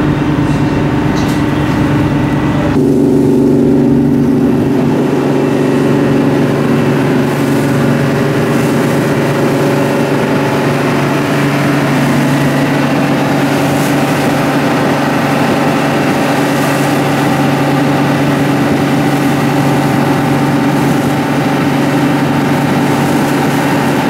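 Fishing boat's engine running steadily while the boat is under way, with a constant hum and rushing noise; the sound shifts slightly about three seconds in.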